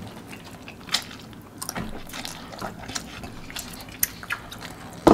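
Close-up eating sounds: a man slurping and chewing spicy cheese instant noodles, with scattered small clicks and wet mouth sounds, and a sudden louder sound near the end.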